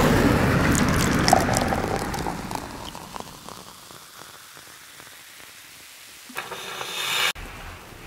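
Intro sound effects: a loud rumbling whoosh with a sharp hit about a second in, fading away over the next couple of seconds, then a rising swoosh near the end that cuts off suddenly.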